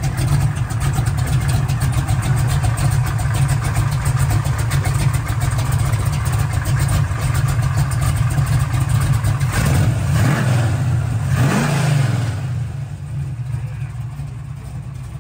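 1969 Plymouth Road Runner's 496 stroker V8 running at idle, blipped twice about ten and eleven seconds in, the revs climbing and dropping back each time before it settles to idle again.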